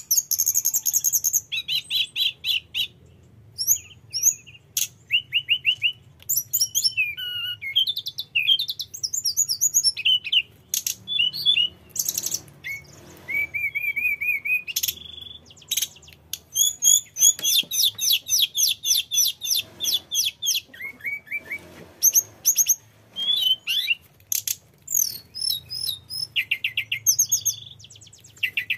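Male hill blue flycatcher singing on and on: a long, varied run of rapid high trills, chattering phrases and clear whistles with only brief pauses.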